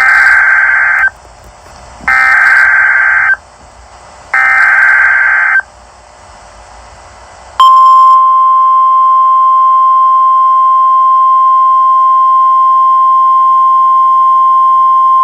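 Emergency Alert System SAME header: three bursts of warbling digital data tones, each about a second long with a second's gap between them, encoding a flash flood warning. About seven and a half seconds in, the long, steady single-pitch alert attention tone begins.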